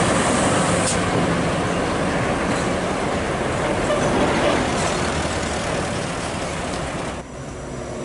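Heavy-haul Scania truck's diesel engine running and its tyres on a dirt road as the loaded tractor-trailer passes close by and pulls away, the sound slowly fading. About seven seconds in it drops suddenly to a quieter, more distant truck engine.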